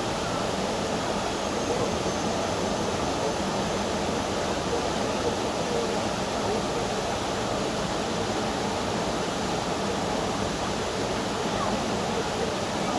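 Waterfall rushing steadily, the water noise spread evenly from low to high. A faint, very high, thin call repeats about once a second over it.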